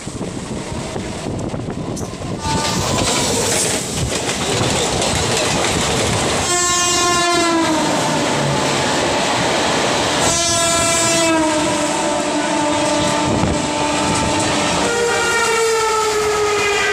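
Indian Railways train horns sounding three long blasts, the first about six seconds in, each sliding down in pitch, over the steady rush and wheel rattle of trains at speed, heard through the open window of a moving train.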